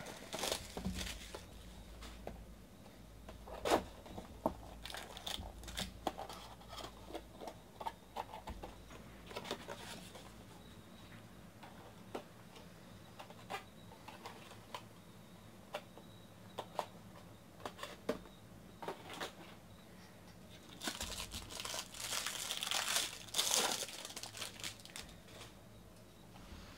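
Plastic wrapping on Bowman Chrome HTA card packs crinkling and tearing as the packs are opened by hand, with scattered small clicks of cards being handled. A denser, louder stretch of crinkling comes near the end.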